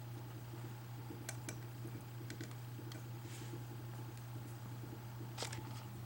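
Scattered small clicks and handling noises of thread being worked through the guides of a Singer 201 sewing machine, the sharpest about five and a half seconds in, over a steady low hum.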